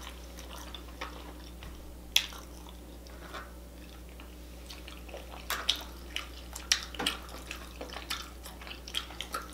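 Close-miked eating sounds: scattered wet lip smacks and mouth clicks as food is chewed and fingers are licked, over a low steady hum.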